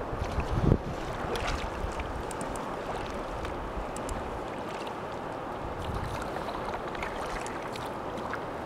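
Steady rush of river water around a raft on a shallow, rocky river, with a low thump just under a second in and a few light knocks scattered through.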